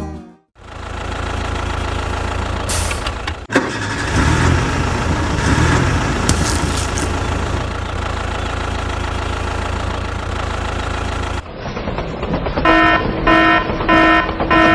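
A vehicle engine running steadily, with a deep rumble, then cutting off abruptly; a repeating beep tone follows near the end, about two beeps a second.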